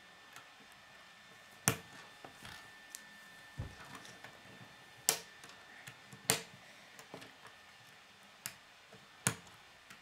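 Plastic K'nex rods and connectors clicking into place and being set down on a wooden tabletop: a handful of sharp clicks at irregular intervals, with small handling rattles between them.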